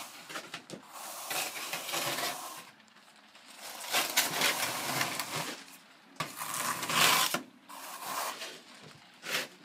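Steel trowel scraping wet stucco base coat over reinforcing mesh on a wall, embedding the mesh: about five sweeping strokes of a second or two each, with short pauses between.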